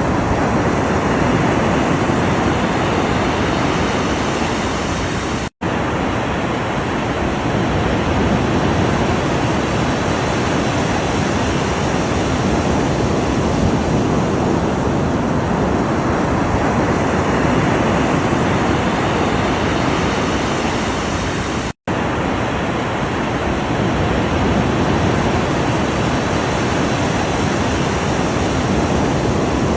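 Ocean surf: a steady, dense rushing wash of waves with slow gentle swells. The sound cuts out for an instant twice, about five and a half seconds in and again near twenty-two seconds.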